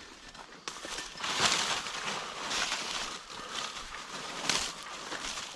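Footsteps swishing through dry field grass and brush, a rustling surge about once a second.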